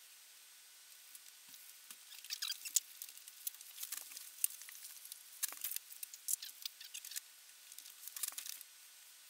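Sped-up working sounds from drawing at a desk: quick, high-pitched scratching and clicking in several short clusters, starting about two seconds in.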